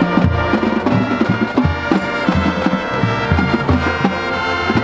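Marching band playing: brass section sounding sustained chords over regular drum strikes and low bass notes.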